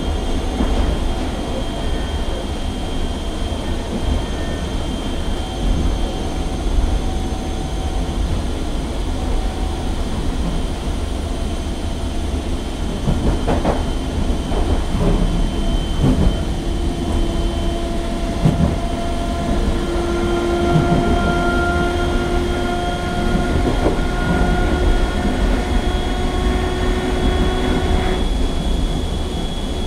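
Interior running noise of an Irish Rail 8100 class DART electric train: a steady low rumble of wheels on rail, with a few knocks around the middle. A steady whine joins about two-thirds of the way through and stops shortly before the end.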